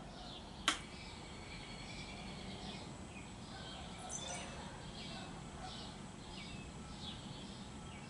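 A single sharp click about a second in as the Canarm 56-inch industrial ceiling fan is switched on, then the fan spinning up with only a faint steady hum. Birds chirp repeatedly over it.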